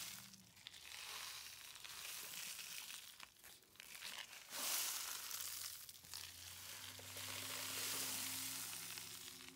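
Homemade cardboard-tube rain stick filled with beans and Epsom salt, turned over so the fill pours through the tube past the foil baffles inside, making a soft rain-like hiss that swells and fades in long surges.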